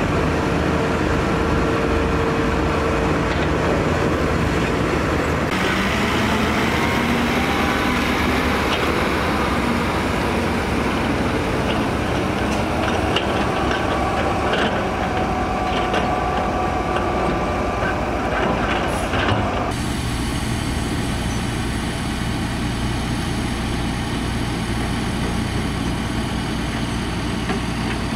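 Heavy diesel construction machinery running steadily, with a few scattered knocks and clanks. The engine sound changes abruptly twice.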